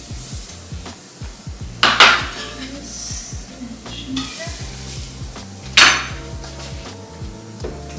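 Minced garlic and ginger hitting a hot pan: two short, loud bursts of sizzling about two and six seconds in, each fading quickly, with light metal clinks from a garlic press against the pan. Quiet background music plays underneath.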